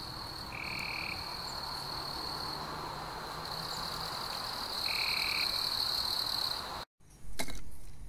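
Night chorus of frogs and insects: a steady high-pitched trill, with two short, lower calls about four seconds apart. Near the end the chorus cuts off abruptly and gives way to a few clicks and a brief rustle of handling.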